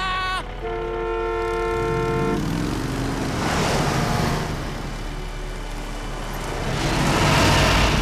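Animated school bus honking its horn in one long steady blast of about two seconds, then its engine revving up with a rising pitch, and two swells of rushing noise as it speeds off.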